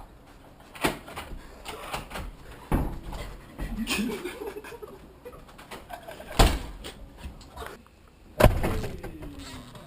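Several sharp knocks and thumps of objects being handled, four in all, the loudest two near the middle and near the end, with rustling between them.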